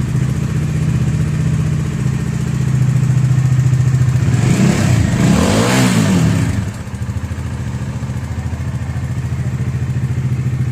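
Bajaj Dominar 400's single-cylinder engine idling just after start-up, revved once briefly about halfway through and settling back to idle. The old timing-chain tensioner rattle is gone; the light tak-tak ticking that remains is put down by the mechanic to the rocker levers at idle and loose inlet and exhaust valve guides.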